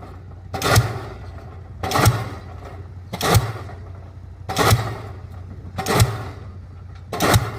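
Diesel pile hammer driving a pile: six heavy strikes, one about every 1.3 seconds, each a sharp bang with a brief ringing tail, over a steady low hum.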